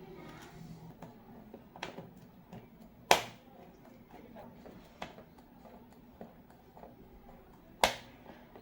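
Hard plastic keycaps from a mechanical keyboard clicking as they are handled and set down: a few scattered sharp clicks, the loudest about three seconds in and near the end.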